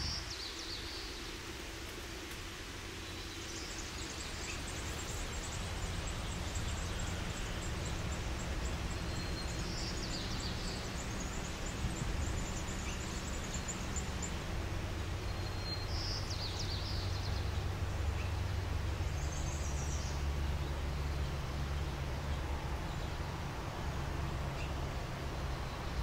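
Outdoor background of a steady low rumble that gets louder about halfway through, with a few faint short bird chirps and a thin high ticking trill.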